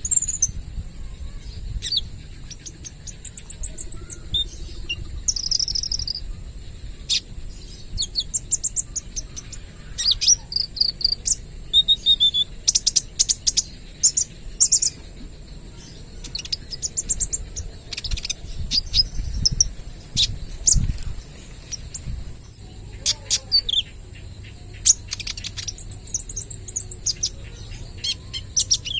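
Young kolibri ninja sunbird singing: bursts of rapid, sharp, high chirps fired off in quick strings (the burst song bird-keepers call 'tembakan'), with a steady high insect-like hiss behind.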